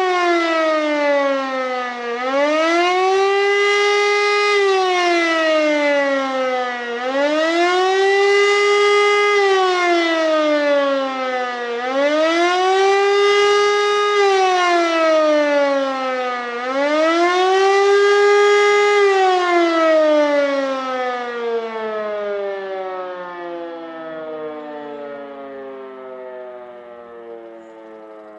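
Civil defense siren sounding the German warning signal: a wailing tone that rises and falls about every five seconds, four times. About two-thirds of the way through it stops cycling and winds down, its pitch sliding steadily lower as it fades.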